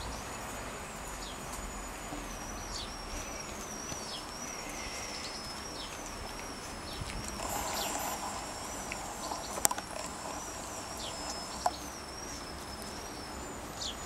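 Outdoor garden ambience with small birds chirping and trilling, repeated high sweeping calls over a steady background hiss, and two sharp clicks near the end.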